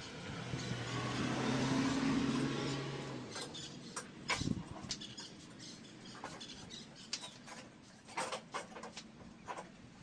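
Gear being shifted around a garage, including a steel mower deck: a rumble that swells and fades over the first three seconds, then scattered knocks and clatter.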